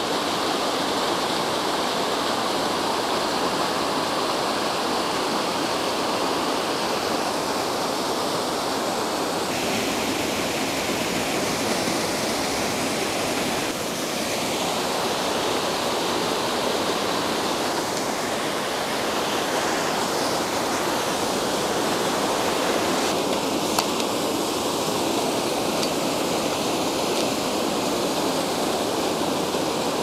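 Brook water cascading over rock ledges in small waterfalls: a steady rush of white water.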